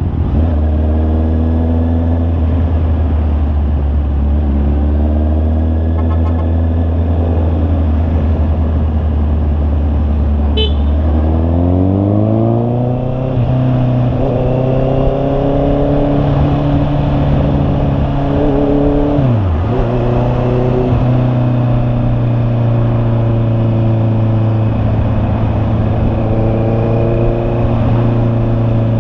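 Honda CB650R's inline-four engine pulling the bike along on the road. Its note holds steady, climbs in pitch about twelve seconds in as the bike accelerates, then drops sharply and recovers about two-thirds of the way through before holding steady again.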